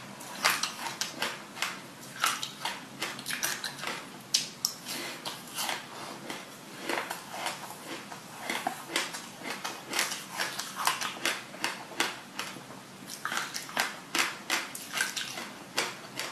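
Close-miked crunchy chewing of sesame-coated passion fruit pulp, a dense, irregular run of small crunches and wet mouth clicks as the seeds break.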